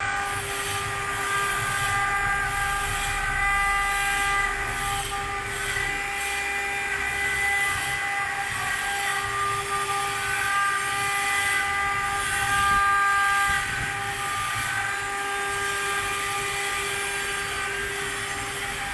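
CNC stone engraving machine's spindle running with a steady high whine, as it engraves stone, over a grinding hiss from the bit.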